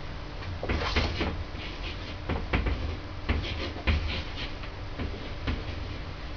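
Marker pen writing on a wall: a run of short scratchy strokes and taps, in two clusters about a second in and from about three seconds in.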